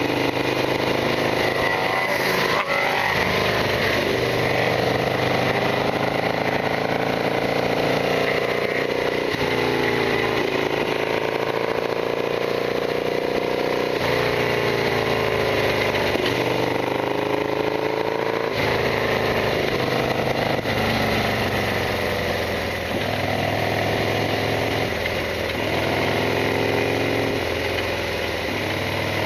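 Harley-Davidson Sportster XL1200R's air-cooled 1200 cc V-twin running under way, its revs climbing and dropping back several times as it pulls through the gears.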